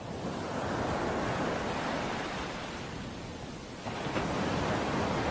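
Rushing, hiss-like noise with no tune in it. It swells over the first second, eases off, then surges again about four seconds in and slowly fades.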